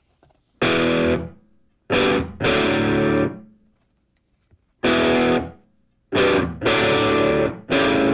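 Music: distorted electric guitar chords played in short stabs, about six in all, with brief silences between them.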